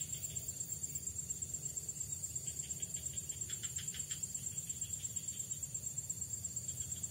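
Insects, crickets by the sound, chirping in a steady, rapid, high-pitched pulse, with a brief faint flurry of quicker chirps about halfway through.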